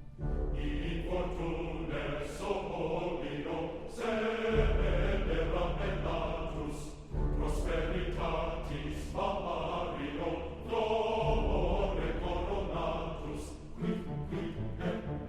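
Background music: choral and orchestral soundtrack music with voices singing over a sustained low bass.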